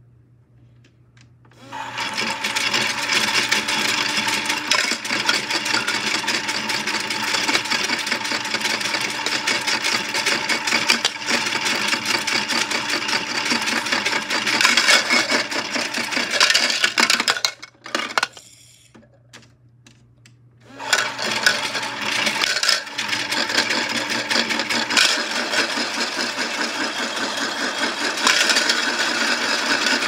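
Washmatic toy washing machine's small electric motor running and its drum turning with cookies inside, a steady whirr with a rattly hiss. It starts about two seconds in, stops for about three seconds a little past halfway, then starts again.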